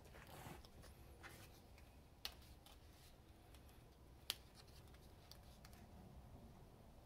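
Quiet handling of EVA foam mask pieces: a soft rustle as they are picked up, then scattered light ticks, with two sharper taps about two seconds apart.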